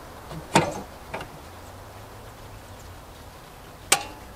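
A metal clank from the outdoor disconnect box's cover about half a second in. Near the end comes one sharp snap as the GFCI breaker inside is switched on to power the mini-split, and it holds without tripping.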